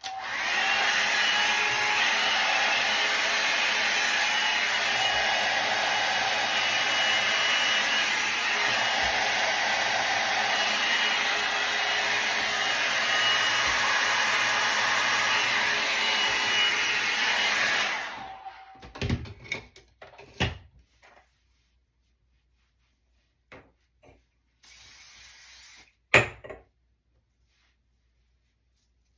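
Handheld hair dryer running steadily for about 18 seconds, heating hair set in Velcro rollers, then switched off. A few knocks and clicks of handling follow, and a brief hiss near the end.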